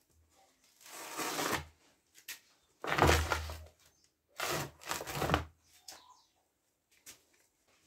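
Plastic basins shifted and bumped on a concrete shelf while a small canister of insecticide dust is shaken into them, in three short bursts of scraping and rattling with a few soft thuds.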